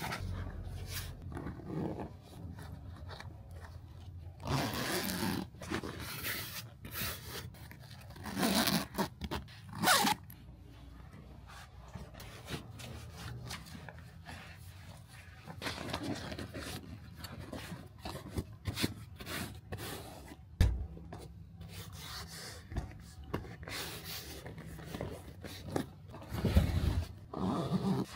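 Irregular rubbing and scraping of hands and tools working on a car seat's upholstery, with occasional louder knocks and rustles.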